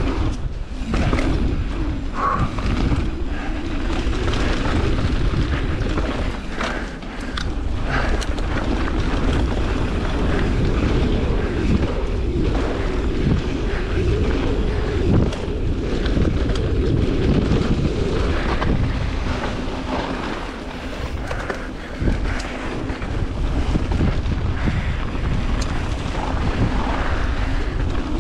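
Wind buffeting the microphone of a mountain bike riding downhill, over a steady rumble of tyres on the trail, with scattered knocks and rattles as the bike goes over bumps.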